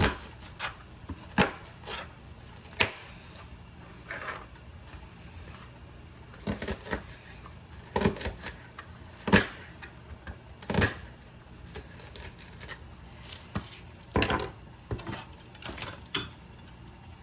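Kitchen clatter: irregular knocks and clicks of utensils, dishes and pots being handled while cooking, some singly and some in quick clusters.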